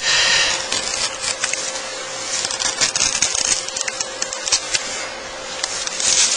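Craft knife blade scoring through wood veneer and masking tape: a dry scratching with many small ticks as the blade is drawn along the edge of the inlay piece.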